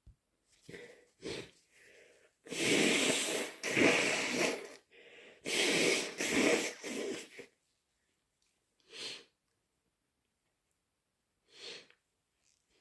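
A person with a runny nose: a few short sniffs, then two long, loud, wet expulsions through the nose and mouth, each lasting about two seconds, followed by two more brief sniffs near the end.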